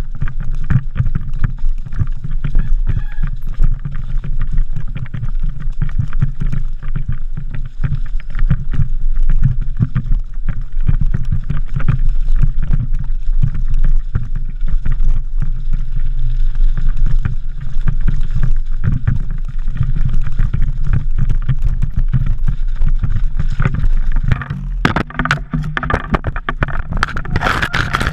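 Mountain bike descending a rough woodland trail, heard from a camera on the bike: a constant low rumble of wind and tyres with dense rattling and knocking as the bike hits roots and rocks. Near the end comes a harsher burst of clattering impacts as the bike crashes into the undergrowth.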